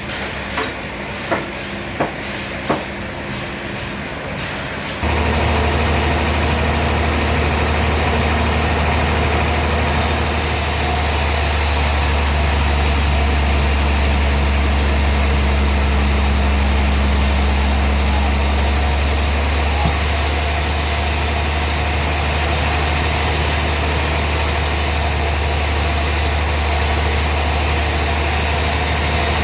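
A few knocks, then about five seconds in heavy sawmill machinery starts up and runs steadily with a deep hum.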